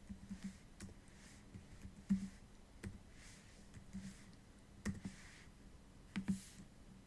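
Faint, irregular clicking from computer input, the cube moves being entered into the puzzle program. The clicks come at an uneven pace, with a few sharper ones about two, five and six seconds in.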